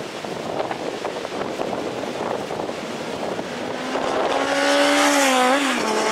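Kawasaki ZXR 750 inline-four sport motorcycle approaching at speed and passing close by, its engine note falling in pitch as it goes past near the end. Wind buffets the microphone throughout.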